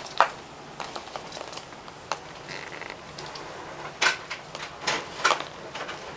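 Irregular light taps and clattering knocks of a champagne cork skittering across a hard floor as a kitten bats and pounces on it, its paws scrabbling on the boards. The sharpest knocks come near the start and about four to five seconds in.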